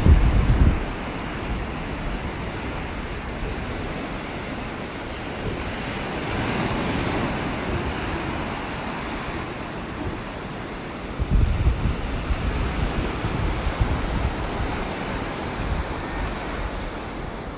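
Ocean surf washing steadily onto a beach, one wave swelling about six seconds in. Wind buffets the microphone in low rumbling gusts at the start and again from about eleven seconds.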